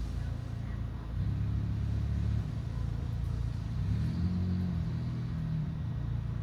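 Low, steady engine-like rumble with a hum underneath; it gets louder about a second in and the hum changes pitch partway through.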